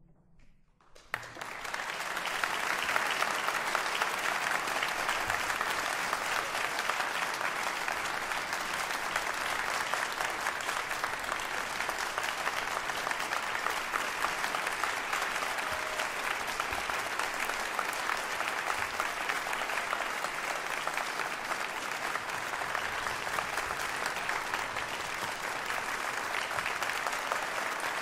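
A moment of near silence, then an audience breaks into applause about a second in and keeps clapping steadily.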